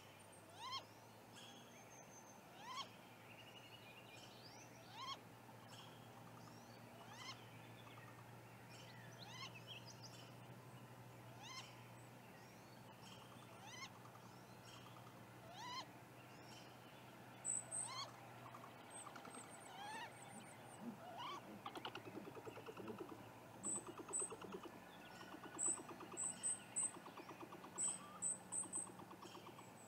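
A female great gray owl's rising whistled call, repeated every one to two seconds, typical of a nesting female begging as the male brings food. From a little over halfway in, high thin chips from a small songbird and a rapid pulsing call join in.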